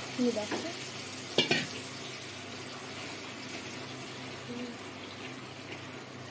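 Steady hiss with a faint low hum under it. A voice trails off at the very start, and a brief sharp sound comes about a second and a half in.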